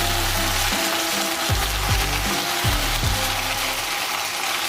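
Onion-tomato masala sizzling steadily in hot oil in a kadai.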